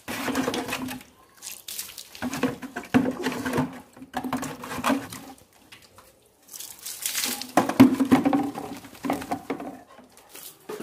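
Water poured and splashed from a plastic bucket over a dog's back and onto a concrete floor during its bath, in three spells.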